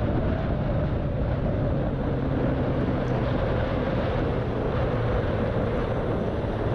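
Sport motorcycle riding at a steady speed in the rain: an even engine hum under wind and wet-road noise.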